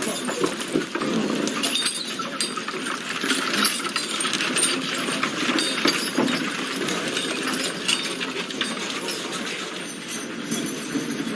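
A dense, layered ambience of animal sounds with many sharp clicks and clinks throughout.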